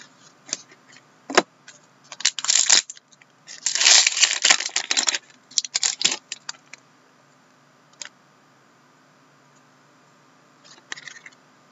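Trading cards being shuffled and slid against one another in the hands: a run of short rustling, flicking bursts, the longest lasting over a second about four seconds in, with a lull before a few more flicks near the end.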